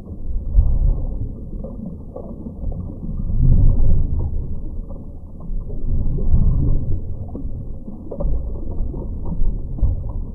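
Muffled low rumble that swells and fades every two to three seconds, with a few faint crackles and no treble.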